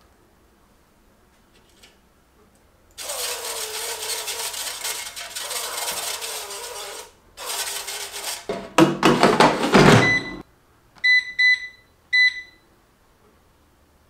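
Cooking oil spray hissing over chicken wings in an air fryer basket, one long spray of about four seconds and a shorter second one. The basket then slides shut into the air fryer with a loud scraping rattle, followed by three short electronic beeps from the air fryer's control panel as it is set.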